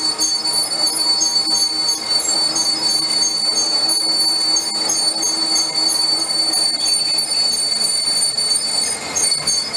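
Metal lathe turning a forged steel flange ring, giving a steady high-pitched whine over a lower running hum; the whine breaks up near the end.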